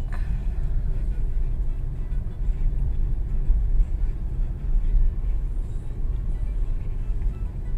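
Low, steady rumble of a car driving, heard from inside the cabin: engine and tyre noise on the road.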